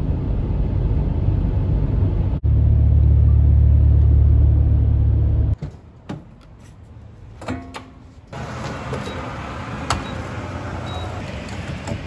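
Steady road and engine rumble inside a Mitsubishi SUV's cabin at highway speed, cutting off suddenly about five and a half seconds in. A quieter stretch with a few clicks follows, then from about eight seconds in a steady hiss, typical of fuel running from a gas pump nozzle into the tank, with a sharp click about two seconds later.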